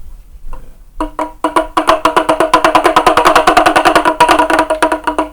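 Meditation drum played in a fast roll. A few separate strikes come first, then from about a second in the strikes quicken to roughly ten a second over a steady ringing pitch, and stop near the end.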